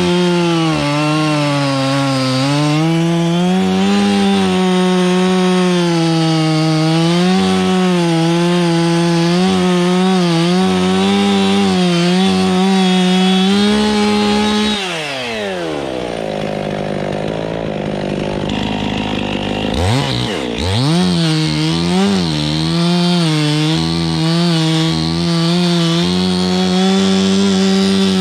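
Gas chainsaw running at full throttle, its pitch wavering as it loads and unloads while cutting oak wood. About halfway through the engine drops to idle for several seconds, then revs back up in a few quick blips and runs at full throttle again.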